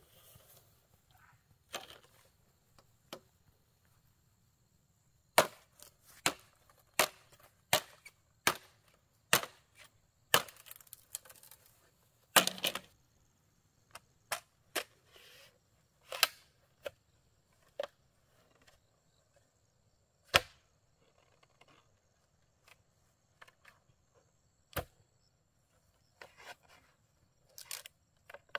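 Machete chopping at a green bamboo pole: sharp woody knocks. A run of strikes comes a little under a second apart, the hardest about halfway through, and then single strikes more spread out.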